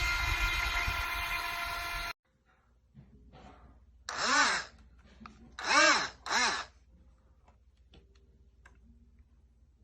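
The electric jet pump motors of an RC boat whine at speed, with a rush of noise, and cut off abruptly about two seconds in. Then three loud, harsh bird calls, the last two close together.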